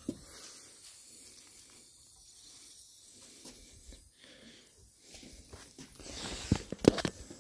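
Faint rustling handling noise from a hand-held camera being moved, with a brief hiss and a few sharp clicks and knocks about six to seven seconds in.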